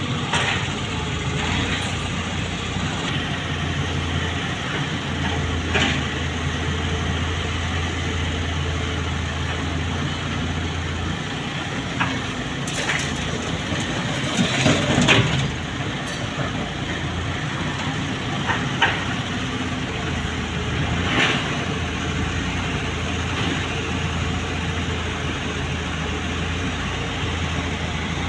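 Volvo wheel loader's diesel engine running steadily, with a few sharp knocks and a louder crunching scrape about halfway through.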